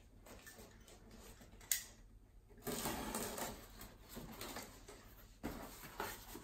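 A small cardboard box being opened and its packaging handled: a sharp click, then a few seconds of rustling and crinkling, and further light clicks and scrapes near the end.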